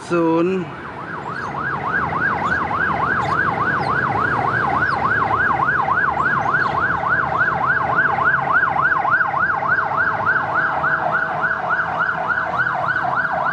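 Electronic siren in a fast yelp, its pitch sweeping up and down about four times a second, swelling in over the first second and then holding steady.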